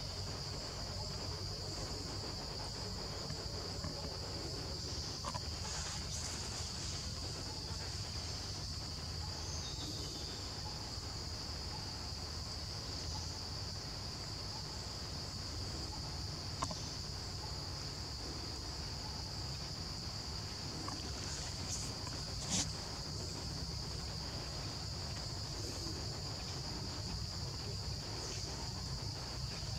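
Steady high-pitched insect chorus, one unbroken drone, over a constant low rumble. A few sharp clicks, the loudest about three-quarters of the way in.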